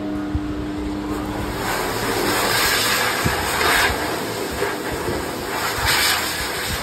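Pet grooming blower dryer blowing air through its hose onto a wet cat's coat. A steady low hum at the start gives way to a loud, even rush of air from about a second and a half in.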